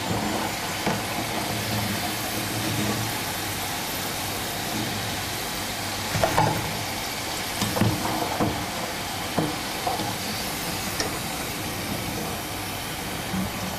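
Pieces of boiled cassava (mogo) deep-frying in hot oil in a frying pan, with a steady sizzle. A few light knocks in the middle come from the slotted metal spoon touching the pan as the fried pieces are lifted out.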